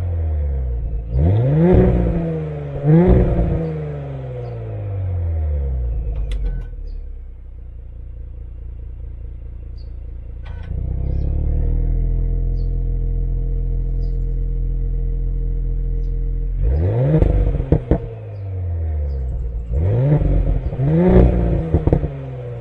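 Audi S5's V6 engine revved in quick blips, each rise falling steadily back down, with a few sharp pops as the revs drop. Halfway through it settles into a steady idle, and more blips come near the end.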